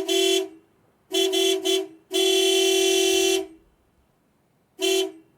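Car horn honking: a couple of short beeps, then three quick beeps about a second in, a long honk of about a second and a half, and another short beep near the end.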